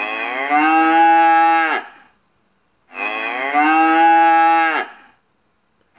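A cow mooing: two long moos of about two seconds each, about three seconds apart, each the same call repeated, with the pitch dipping at the start and falling away at the end. A third moo begins right at the end.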